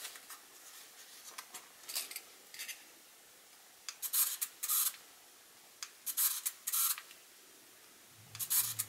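Fingers handling the plastic body of a Pentax Espio 120SW compact film camera with its back open: a few light clicks, then three pairs of short rubbing scrapes about two seconds apart.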